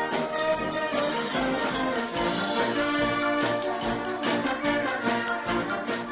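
Brass band playing a lively piece, held brass chords over a steady percussion beat with tambourine-like hits.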